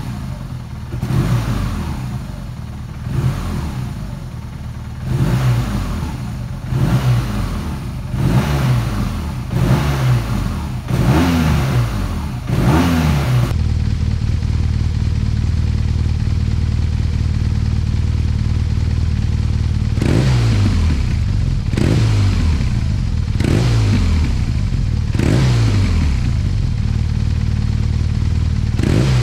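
BMW R1200RT's air- and oil-cooled boxer twin breathing through its factory Akrapovic silencer, free-revved in neutral: a run of short throttle blips every second or two, each rising and falling back. About halfway through it settles into a steady run for several seconds, then the quick blips begin again.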